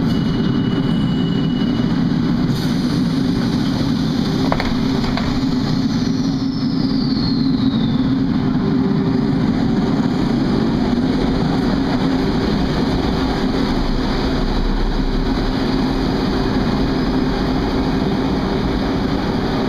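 Rome Metro train pulling out of an underground station: a steady, loud rumble of the moving train, with a short steady high tone near the start and a single knock about four seconds in.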